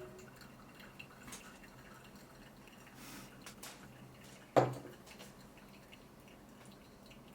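Faint scattered clicks and small knocks of objects being handled, with one sharp knock and a brief ring about four and a half seconds in.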